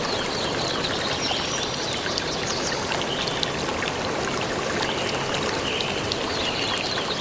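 Steady rush of flowing water, with high bird chirps over it in two spells, in the first few seconds and again near the end.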